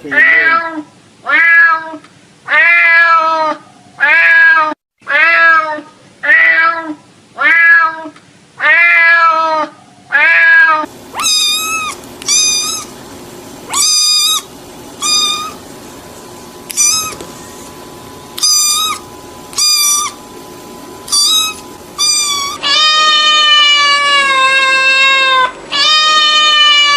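Cats meowing. First a run of short meows, about one a second; then a higher-pitched cat calling with short meows spaced a second or so apart; near the end two long drawn-out meows.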